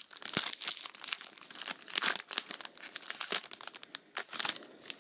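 Yu-Gi-Oh booster pack's foil wrapper being torn open and crinkled by hand: a dense run of sharp crackles that thins out near the end.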